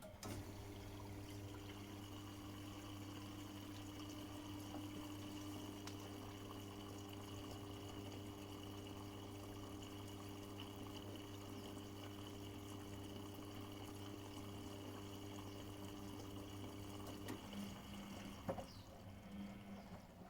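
Miele Professional WS5436 washing machine taking in water: the inlet valve opens with a steady hum and water runs into the machine, then both cut off suddenly near the end. A single knock follows about a second later.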